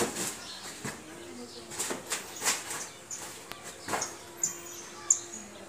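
A bamboo pole knocking and scraping as it is worked overhead into the roof: a series of short sharp knocks and rustles, the sharpest near the end. Small birds chirp briefly a few times in the second half.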